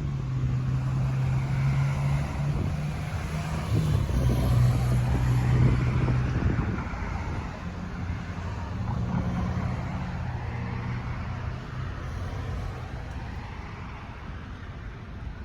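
A motor vehicle's engine drones steadily, growing louder about five seconds in and then fading away, over a noisy rush of wind.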